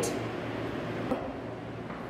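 Room tone in a small room: a steady hiss with a low hum, and one faint tap about a second in.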